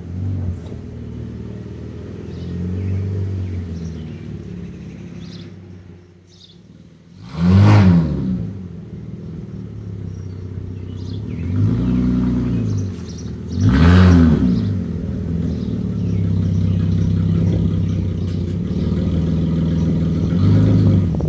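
Pickup truck engine running as the truck is moved and backed up, revved up and falling back several times, loudest about eight and fourteen seconds in.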